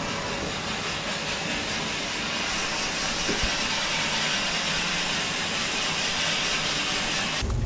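A barber's overhead vacuum hose hissing steadily as its nozzle is run over a freshly cut head to suck up loose hair clippings. It cuts off suddenly near the end.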